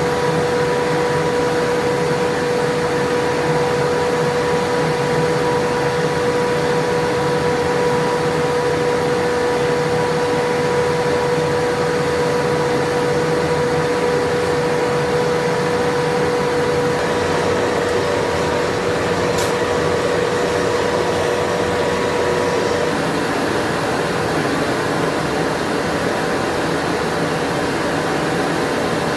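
Forge blower running: a steady rushing noise with a steady whining tone that cuts out about three quarters of the way through.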